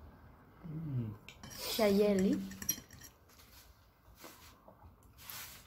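A metal fork clinks and scrapes against a plate as pasta is twirled and eaten. A woman's voice sounds twice in the first half, a short falling hum about a second in and a louder voiced sound about two seconds in.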